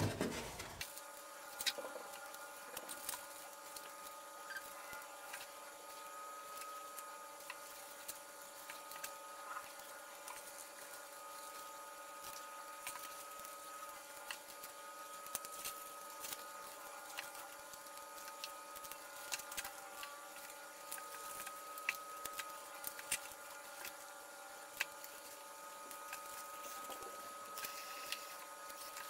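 Faint small clicks, scratches and rustles of hands working thin LED light wires and tape along a foam model airplane's wing, over a faint steady hum of several fixed tones.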